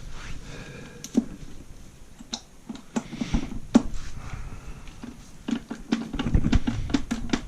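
Scattered light clicks and knocks of metal manual-transmission parts being handled on a workbench, coming more often near the end.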